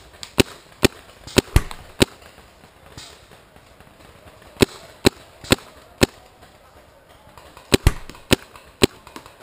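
Paintball marker firing in three quick strings of shots, about two shots a second, with short pauses between strings.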